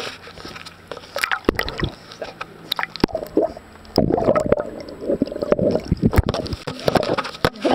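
Pool water sloshing and gurgling around a camera held at the surface, as a dog paddles right up against it. About four seconds in it gets louder and busier, with many quick clicks and splashes.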